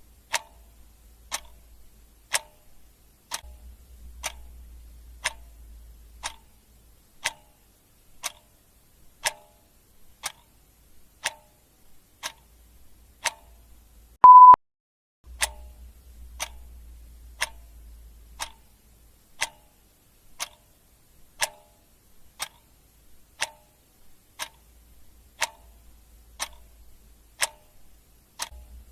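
Clock ticking steadily, about one tick a second. About halfway through comes a single short, high beep, louder than the ticks.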